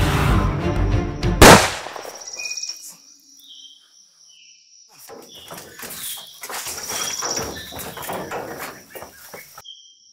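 A loud film-score sting ends in a sharp hit about a second and a half in, then drops away to forest ambience: birds chirping and a steady insect drone, with scattered scuffs and thuds of people scrambling off a pickup truck's bed and running.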